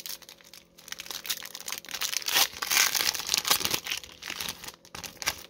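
Foil wrapper of a hockey card pack being torn open and crinkled by hand, an irregular crackling that is loudest in the middle.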